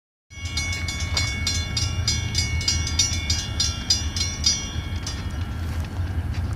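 Railroad grade-crossing warning bell ringing at about four strikes a second, fading out about four and a half seconds in, over a steady low rumble.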